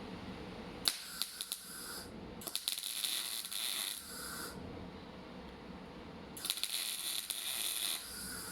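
Torros MIG 200 Pulse semi-automatic welder arc crackling and sizzling in three short welding bursts, each one to two seconds long, with a low steady hum between them.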